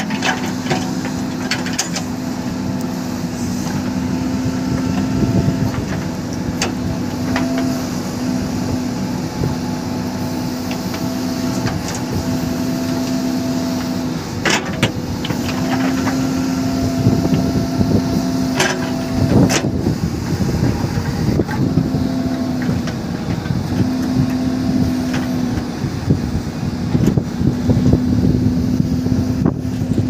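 A JCB 3DX backhoe loader's diesel engine runs under hydraulic load as the backhoe digs and swings its bucket, the engine note wavering and returning as the load changes. Sharp knocks and clanks of the bucket and stones come now and then, the loudest two about halfway through.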